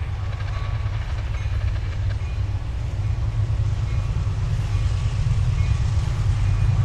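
EMD SD50-2 diesel locomotive's 16-cylinder two-stroke engine throttling up to get a stopped train moving: a deep, pulsing rumble that grows gradually louder.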